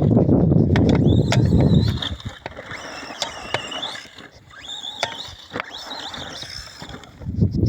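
Remo Hobby EX3 RC short course truck driving over rough ground: a loud rush of tyres and drivetrain for the first two seconds, then quieter running with a high motor whine rising and falling and scattered clicks of gravel and suspension knocks, loud again just before the end.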